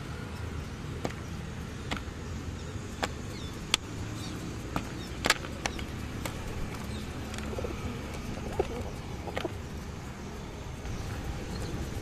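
Pigeons cooing at close range, with a scattering of sharp taps, over a steady low rumble of city traffic.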